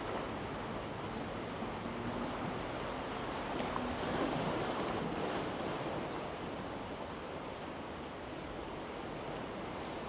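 Sea surf washing against a rocky shore: a steady rush of noise that swells a little about four seconds in.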